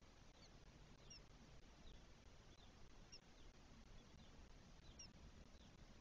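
Faint, thin high peeps scattered a few times a second over a low hiss: newly hatched spotless starling chicks begging in the nest cavity.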